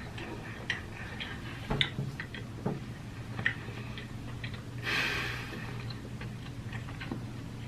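A person chewing a fried chicken sandwich with scattered wet lip-smacking clicks, and a short louder rustling burst about five seconds in, over a faint steady low hum.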